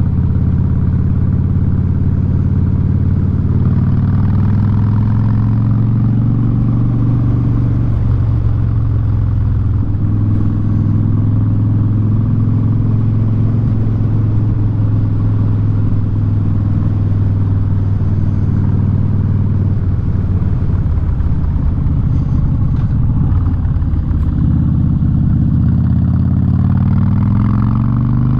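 Harley-Davidson Street Bob V-twin running through a loud Vance & Hines aftermarket exhaust while riding, a steady deep exhaust note at cruising speed. Near the end the engine pitch rises as the bike accelerates.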